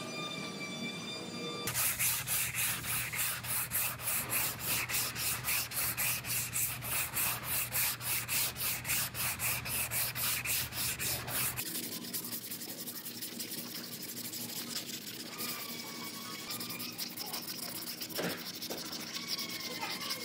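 Body filler on a car's rocker panel being hand-sanded with a sanding block: quick back-and-forth strokes, about five a second, then from about halfway a quieter, finer rubbing as the filler is smoothed for primer.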